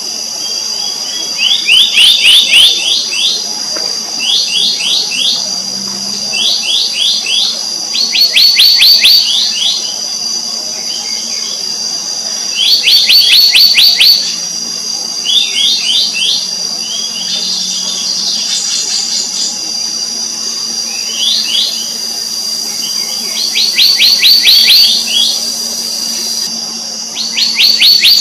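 Black-naped monarchs calling: short bursts of quick, high, repeated notes, about ten bursts a couple of seconds apart, over a steady high-pitched drone.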